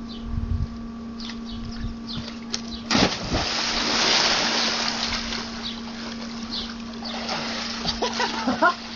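A person plunging into a backyard swimming pool: a sudden splash about three seconds in, then a few seconds of churning water that fades away. A steady low hum runs underneath throughout.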